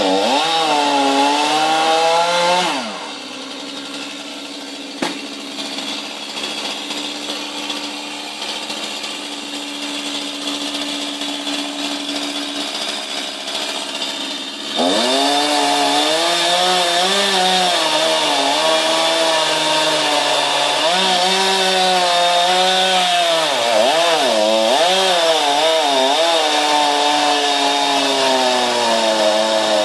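Two-stroke chainsaw cutting into a conifer trunk, its engine note dipping and recovering under load. About three seconds in it drops back to a steady idle, and about halfway through it revs up again and cuts on, the pitch bogging and rising as it works through the wood.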